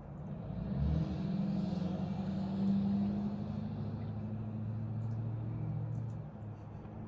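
A car driving by close: its engine hum swells about a second in, holds steady, and fades after about six seconds.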